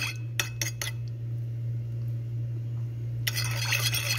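A metal spoon stirring a thick pomegranate-molasses and balsamic vinegar dressing in a small ceramic bowl. There are a few light clinks near the start, a quieter stretch, then steady liquid swishing and clinking from about three seconds in. A steady low hum runs underneath.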